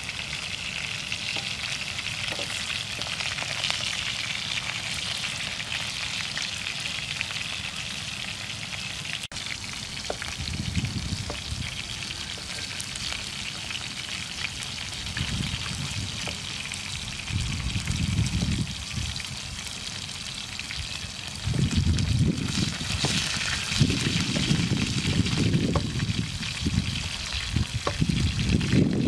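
Food sizzling as it fries in oil in a pan on a portable gas stove, a steady hiss. Bursts of low rumble come in about a third of the way through and grow louder near the end.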